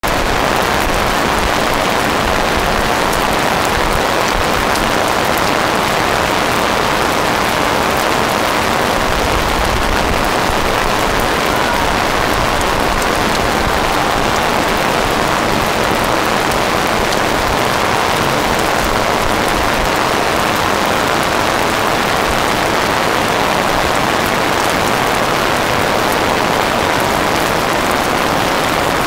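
Heavy rain falling steadily, a dense continuous hiss of rain on surfaces with scattered drop impacts.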